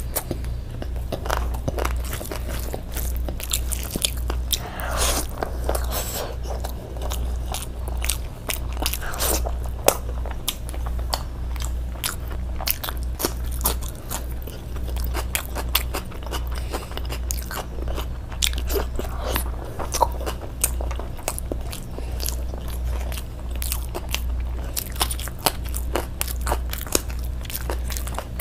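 Close-miked mukbang eating sounds: steady wet chewing, lip smacks and crunchy bites as a person eats chicken with curry, with many small irregular clicks. A steady low hum runs underneath.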